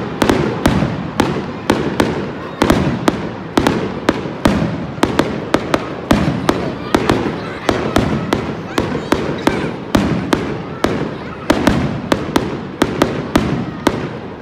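Fireworks display: aerial shells bursting overhead in quick succession, about three sharp bangs a second without a break.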